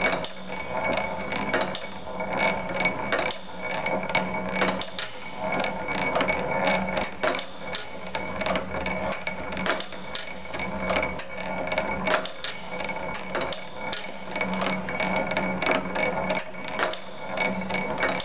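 Cast-iron valve linkage and hit-and-miss latch-out mechanism of a 1902 Globe Iron Works 8 HP engine worked over by hand, its levers, latch and roller clicking and clacking a few times a second.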